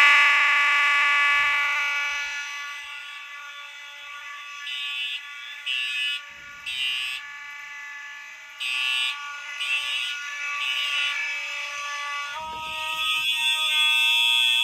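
A bank of fire alarm horns sounding together: a steady electronic horn tone that fades over the first few seconds, sputters in short irregular bursts, and comes back strongly about twelve seconds in. The horn sounds like it's dying, which the owners put down to running a bunch of devices on the one circuit.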